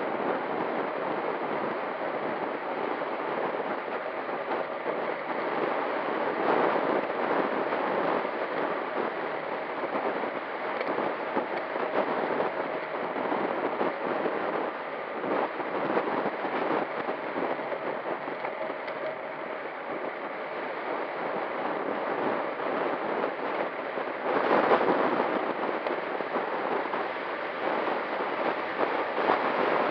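Wind rushing over the microphone of a handlebar-mounted camera on a road bike moving fast on a descent: a steady noisy rush that swells louder about six seconds in and again later on.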